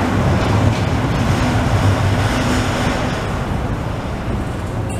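Carmelit underground funicular car rolling along its track past the platform: a steady low rumble with rushing noise that eases off slightly toward the end.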